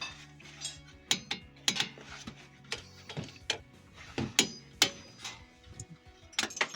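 Irregular metallic clinks and knocks of hand tools and steel brake parts being handled, over steady background music.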